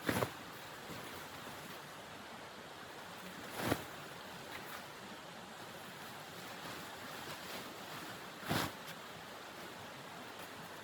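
Steady blizzard wind blowing, a constant rushing noise, broken three times by a short, sharp snap.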